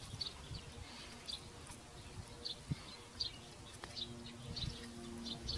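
A bird chirping over and over, short high chirps about twice a second, with a few faint knocks as the coconut shell halves are handled. A low steady hum comes in about four seconds in.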